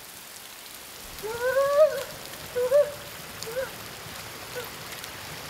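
A steady hiss throughout, with a voice giving a few short calls about a second in, each one shorter and fainter than the last.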